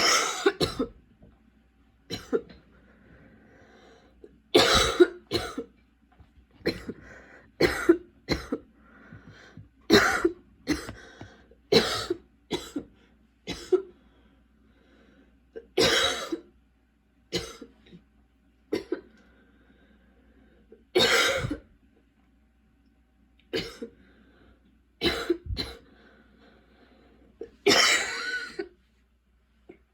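A young woman coughing over and over in fits: about twenty sharp coughs at irregular gaps, many in quick pairs, with a longer, harder cough near the end. It is a persistent cough that her medication has not cleared.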